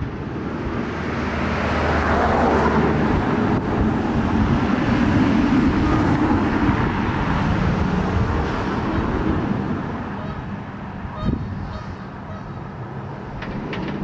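Candymonium's Bolliger & Mabillard hyper coaster train running the track on a test run: a rushing roar of wheels on steel track that swells over the first couple of seconds, holds, and fades away from about eight seconds in.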